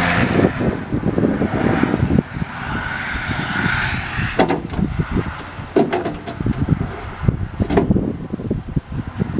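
Wind rumbling on the microphone, with several sharp clicks and knocks of metal parts as the lock and linkage are fitted into the truck's door.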